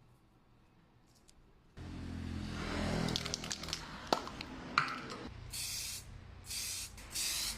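Four short bursts of spraying hiss, each about half a second, after a few seconds of rustling, scraping and scattered clicks over a low hum.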